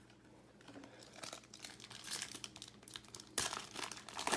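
Foil wrapper of a Topps baseball card pack crinkling as it is torn open by hand, with the loudest rips about three and a half seconds in and at the end.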